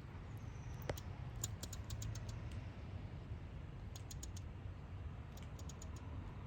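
Squirrel making sharp clicking noises in three short bursts of rapid clicks, over a steady low background rumble.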